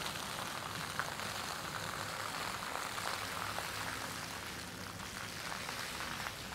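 Water fountain splashing steadily: a dense patter of falling water.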